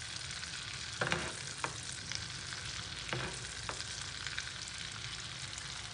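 Butter melting in a small frying pan on a gas burner, sizzling steadily as the water in it boils off and white foam rises to the top to be skimmed off. A few sharp clicks and pops stand out above the sizzle.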